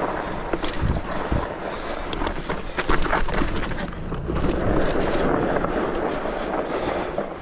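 Rigid-fork fat bike rolling along a snowy trail: tyres crunching through the snow, with many short clicks and knocks as the bike rattles over bumps, and wind on the microphone.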